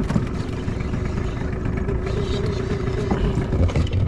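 Boat engine running steadily, a constant hum over low rumbling noise.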